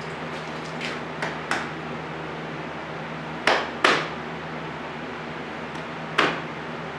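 A handful of sharp metal knocks, each with a short ring, spaced irregularly: two light ones, then two louder ones close together, then one more. A steady low hum runs underneath.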